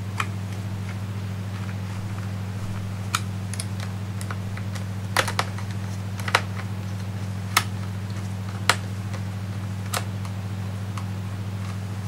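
Scattered light clicks and taps from a small screwdriver and fingers on the open underside of a Dell Inspiron 1525 laptop, about nine in all, over a steady low hum.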